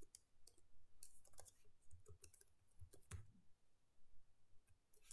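Faint computer keyboard typing: a handful of separate key clicks spread over the first three seconds.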